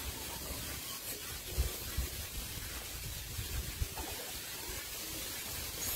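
Steady outdoor background hiss with an uneven low rumble and a couple of soft thumps; no animal calls are heard.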